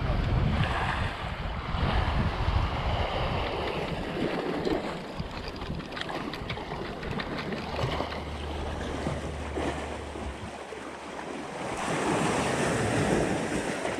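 Sea waves washing against rocks, surging near the start and again near the end, with wind buffeting the microphone. A low steady hum sounds for a couple of seconds in the middle.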